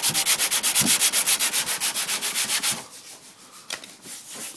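Sandpaper rubbed by hand over a car body panel in quick back-and-forth strokes, about six a second, taking surface rust off the paint. The strokes stop near the middle, leaving a few faint rubs and clicks.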